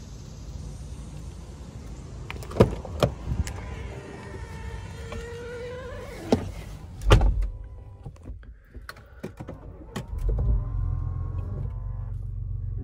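Lincoln Navigator's door and cabin sounds: a few sharp clicks, then an electric motor whining up and down in pitch for about two seconds, and a heavy door slam about seven seconds in. From about ten seconds the 3.5-litre twin-turbo V6 is running with a low steady hum.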